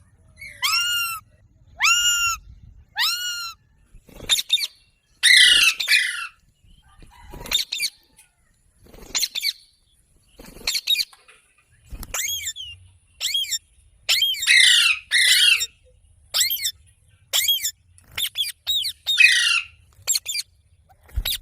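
Rose-ringed parakeet (Indian ringneck parrot) squawking in a string of short, loud calls about one a second. Some are clear and arching in pitch; others are harsher screeches.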